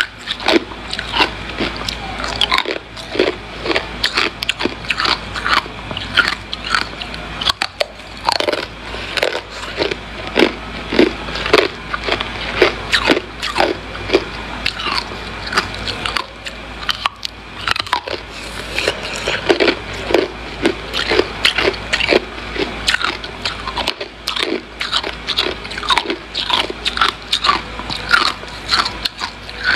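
A person biting and chewing white ice, picked up close to the microphone: rapid, irregular crisp crunches that keep going, with a couple of brief lulls.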